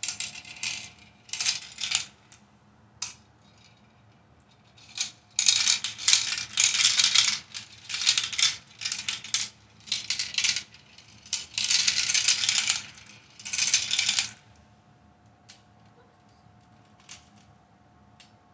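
Marbles rattling and clicking down a plastic marble run in a string of clattering bursts, which stop about fourteen seconds in, leaving only a few faint clicks.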